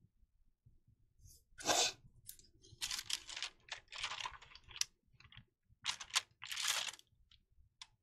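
A sheet of thin tracing paper rustling in several short bursts as it is lifted off the light pad and laid back down, the loudest burst about two seconds in.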